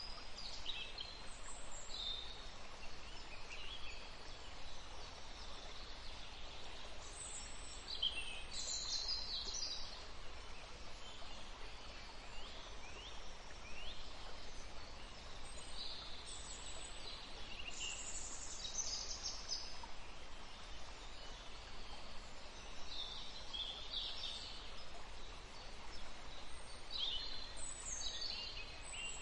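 Birdsong: scattered clusters of short, high chirps and quick falling calls every few seconds over a faint, steady background hiss.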